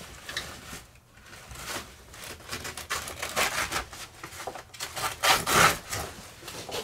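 Scissors cutting up through a camper's heavy canvas, an irregular run of cuts with the fabric rubbing, the loudest a little past five seconds in.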